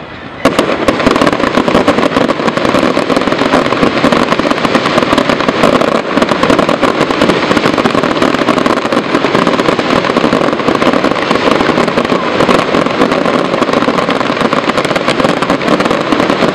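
Fireworks display: a dense, continuous barrage of bangs and crackling that starts suddenly about half a second in and keeps up without a break.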